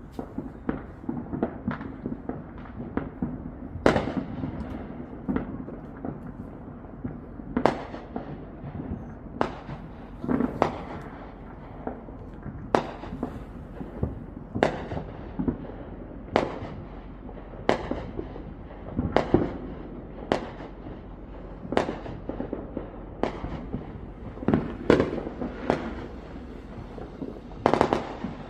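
Fireworks going off in a long run of sharp bangs, about one every second at uneven gaps, some much louder than others, over a steady low background rumble.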